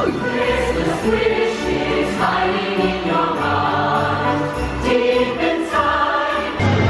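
Choir singing with instrumental accompaniment.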